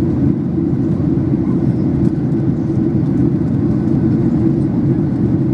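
Steady cabin noise inside a Boeing 737-800 climbing after takeoff: the drone of its CFM56-7B engines and rushing air, heard from a window seat over the wing.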